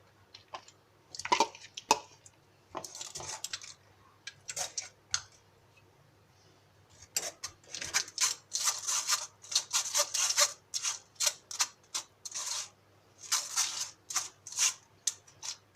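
A spoon scraping and clinking against a bowl in quick repeated strokes while food is mixed: a few scattered strokes at first, then a busy run of them from about halfway through.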